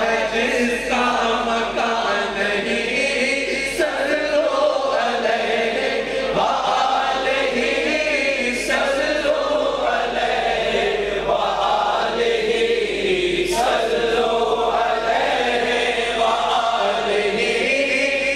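Naat sung through a microphone, with a group of men chanting the lines along together.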